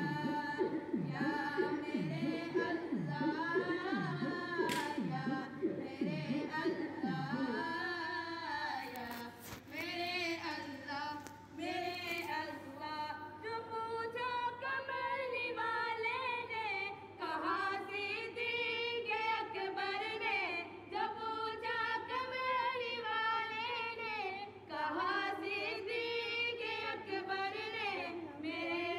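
Unaccompanied devotional singing: a sustained, wavering vocal melody. Under it runs a repeated low swooping pulse, about three every two seconds, for the first seven seconds or so.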